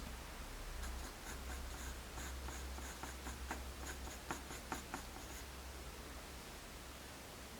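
5B graphite pencil (Tombow MONO 100) scratching on plain printing paper in a run of quick, short strokes. About five seconds in, it eases to a fainter, steadier scratch.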